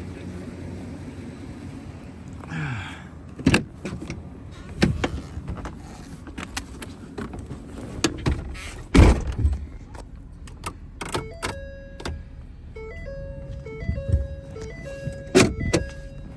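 Several sharp knocks and clunks, one of them much louder than the rest. In the second half comes a string of electronic beeps and tones that steps back and forth between two pitches.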